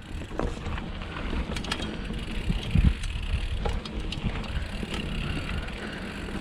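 Mountain bike rolling down a rough trail: a steady rumble from the tyres, with scattered clicks and rattles from the bike and one louder thump about three seconds in.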